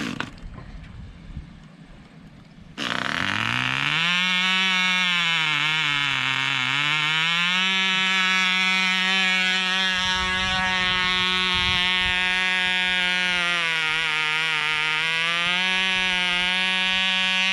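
A tiny Cox glow-plug model engine on a model helicopter catches about three seconds in. It winds up quickly to a high, steady buzz, sagging briefly in pitch a couple of times.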